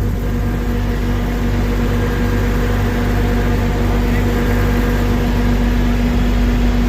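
Heavy truck diesel engine running at a steady speed, with a constant hum and low rumble.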